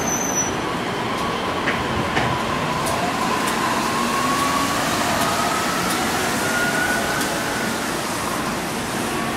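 Yui Rail 1000-series straddle-type monorail pulling away from the station, its VVVF inverter drive whining in several tones that rise steadily in pitch as the train picks up speed, over the rumble of its rubber tyres. A couple of sharp clicks come about two seconds in.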